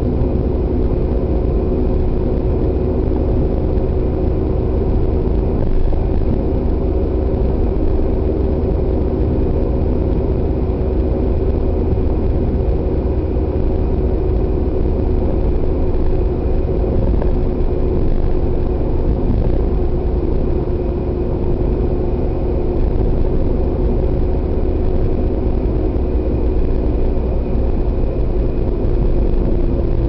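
Car driving on a cleared winter road, heard inside the cabin: a steady low rumble of engine and tyre noise with a steady hum, which drops slightly in pitch near the end.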